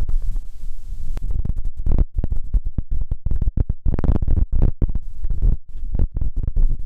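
Gusty wind buffeting the microphone: an uneven low rumbling that rises and falls with each gust.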